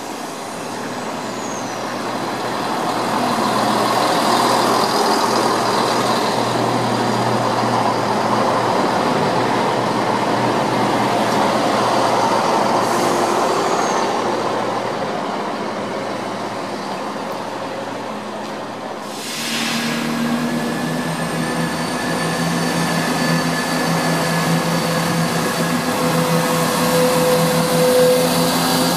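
Chiltern Railways Class 168 "Clubman" diesel multiple unit running in along the platform, the rumble of its wheels and underfloor diesel engines growing louder over the first few seconds. About two-thirds of the way through comes a short hiss, and the train then settles into a steady hum with several held tones.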